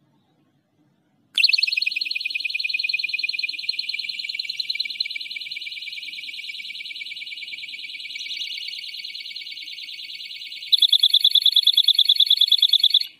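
Electronic siren of a homemade motion-sensor animal-scaring device going off in a test: a shrill, rapidly warbling tone that starts about a second and a half in, then switches to a louder, faster pulsing pattern near the end and cuts off suddenly.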